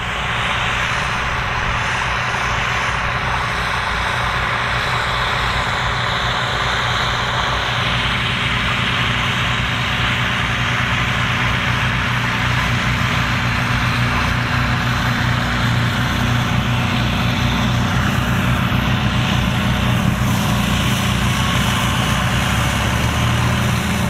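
Vintage Fiat tractors' engines running steadily under load close by, one pulling a plough through the field, a continuous loud engine drone.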